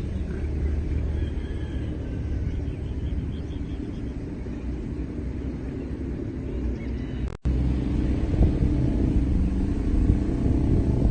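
Low, steady outdoor rumble of wind on the microphone and distant traffic, broken by a sudden brief cut about seven seconds in, after which it is a little louder.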